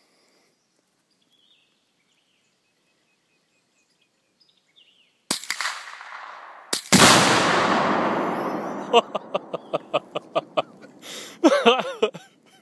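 A .22 rifle shot about five seconds in, then a second shot followed at once by the loud blast of a .22-sensitive Boomer binary exploding target (a Tannerite-type mix), the rumble dying away over about two seconds. After the blast comes a rapid run of short, sharp, pitched sounds.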